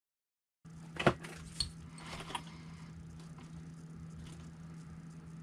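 A few sharp clicks and light rattles from handling the 1/10 RC truck while checking its suspension sag. The loudest click comes about a second in and two smaller ones follow. A steady low hum runs beneath.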